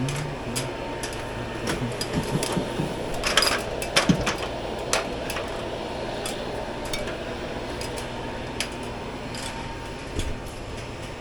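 Hands working overhead: scattered knocks, clicks and rustling, with a short clatter about four seconds in, over a steady hum.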